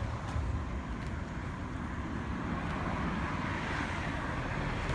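Steady rumble of road traffic, with wind on the microphone.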